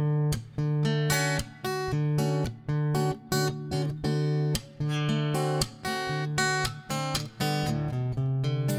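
Acoustic guitar music, strummed chords in a steady rhythm.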